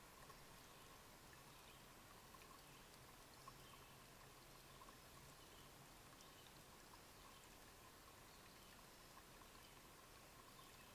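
Near silence: faint steady hiss with the faint trickle of a shallow woodland stream.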